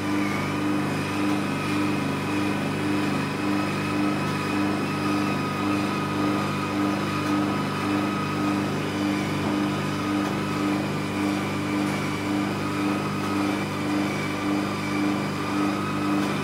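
NUBWAY Velashape body-contouring machine running under treatment, its vacuum pump and motorised roller handle working: a steady mechanical hum with an even, rapid pulsing.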